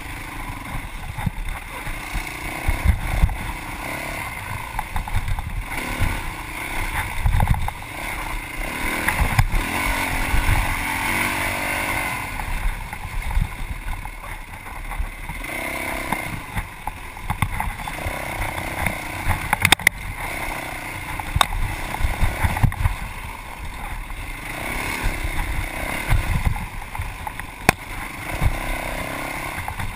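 Yamaha WR450F's 450 cc four-stroke single-cylinder engine running under load, picked up by a bike-mounted camera, its pitch rising and falling repeatedly as the throttle is worked, with many short knocks over it.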